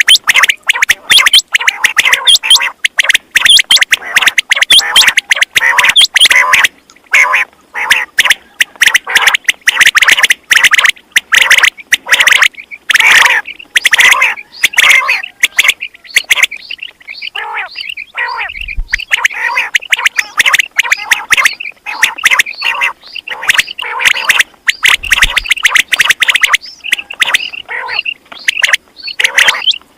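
Quail calling rapidly over and over in short, sharp calls, several a second, thinning out briefly past the middle.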